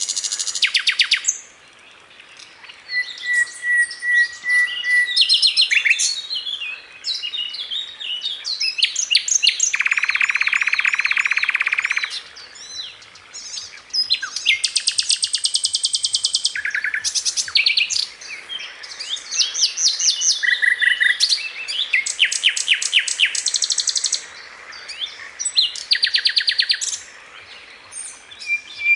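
Sikatan londo song played as a masteran: a run of varied, rapid trills, chattering rattles and short whistled notes with brief pauses. A longer buzzy rattle comes about ten seconds in.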